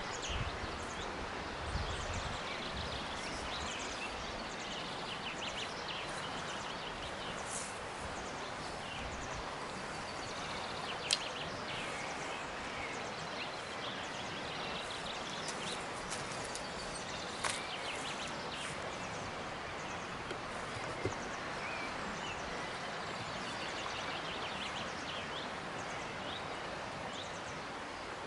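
Steady outdoor noise on a lawn with birds chirping in the background. There are a few dull thumps near the start as a clod of turf is pressed back into a hole, and a couple of sharp clicks later on.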